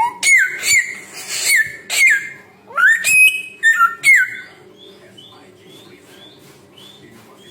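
A samyong songbird giving loud whistled calls with sharp pitch slurs, falling and rising, in quick phrases for the first few seconds. After that it switches to faint, short, evenly repeated notes.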